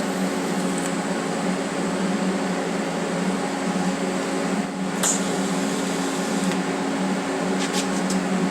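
A steady machine hum with a hiss over it, holding one low tone throughout. There is a short click about five seconds in and a few light ticks near the end.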